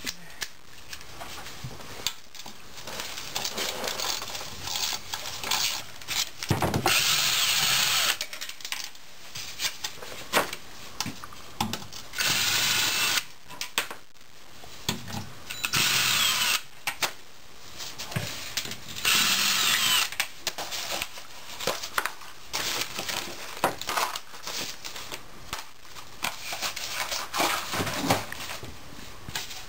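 Ryobi 18V cordless drill/driver with a socket running out the 10 mm oil pan bolts on a 4L80E transmission, in four main bursts about a second long each. Short knocks and clinks of tool and bolt handling come between the bursts.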